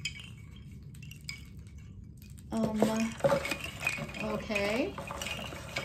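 Bamboo wind chime's hollow tubes and wooden beads clacking lightly as it is held up and untangled by hand. About halfway through, a voice makes wordless sounds over the clatter.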